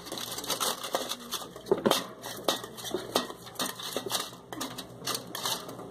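Aluminium cupcake tins clattering against each other and the metal air fryer basket as they are tipped out hot: a series of irregular metallic knocks and clinks.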